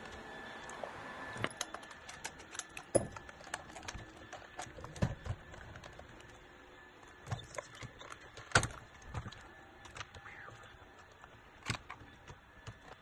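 Hard plastic shell halves of a toy dinosaur being pulled apart and handled: scattered sharp clicks and knocks, the loudest about eight and a half seconds in.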